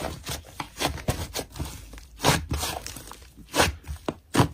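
Thick white slime being squeezed and pressed between fingers, giving a run of irregular crackling, squelching pops.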